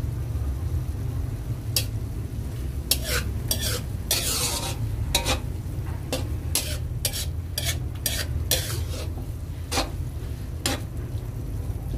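A spatula scraping and stirring corned beef with garlic and onion in a hot, oiled metal frying pan, with light sizzling: about a dozen sharp scrapes from about two seconds in, one drawn out a little longer, over a steady low rumble.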